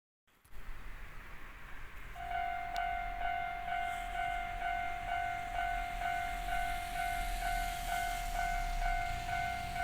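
Japanese railway level-crossing warning alarm, the electronic bell in its standard tone. It starts about two seconds in and rings at about two strokes a second, the signal that a train is approaching.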